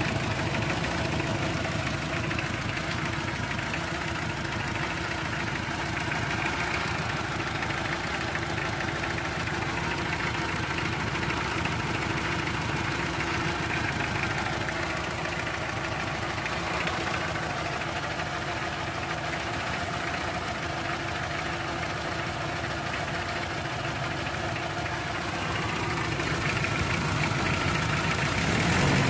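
Toyota 2C four-cylinder diesel engine idling with a steady clatter, running just after its fuel lines were bled while the diesel fills the system. It gets somewhat louder over the last few seconds.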